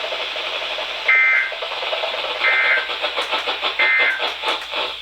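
Emergency Alert System end-of-message code from a weather radio broadcast: three short two-tone digital data bursts about a second and a quarter apart, over a steady static hiss with some crackle near the end.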